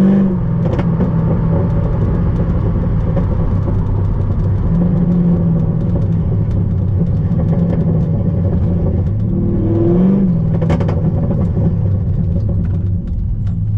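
Chevrolet Corvette C5's 5.7-litre V8 through a Corsa exhaust, running steadily under way. The revs rise briefly about ten seconds in, then settle again.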